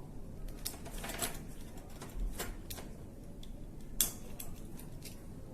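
Scattered light clicks and taps of a stainless steel wedge drop wire clamp being handled as its wedge is seated in the shell, with the sharpest tap about four seconds in.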